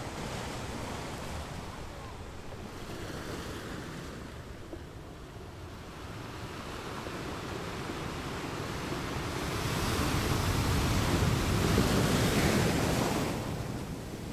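Sea surf washing on a shore: a slow surge that builds, is loudest around ten to thirteen seconds in, then falls away.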